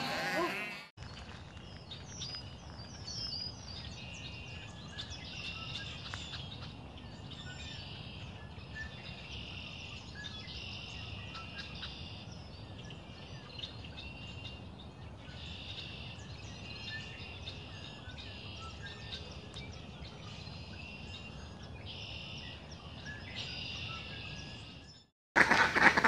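Open-field ambience: insects chirping in high-pitched pulses of about a second each, repeating over a low steady background hiss, with scattered small bird chirps. A sheep bleat fades out at the start, and ducks start quacking just at the end.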